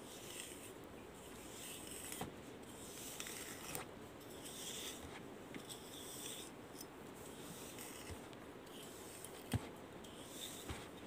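Plastic comb drawn through long wet hair: a faint, scratchy rasp with each stroke, repeated stroke after stroke. A single sharp click a little before the end.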